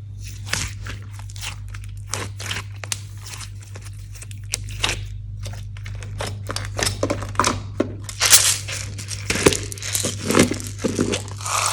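Slime being squished and stretched by hand, with a dense, irregular run of small crackles and pops that grows busier and louder in the second half.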